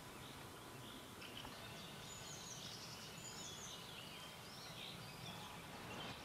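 Faint outdoor ambience with small songbirds singing: short chirps and warbling phrases, busiest in the middle.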